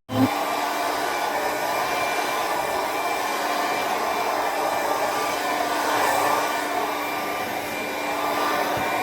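Hair dryer running steadily on one setting, a constant blowing rush with a steady motor hum.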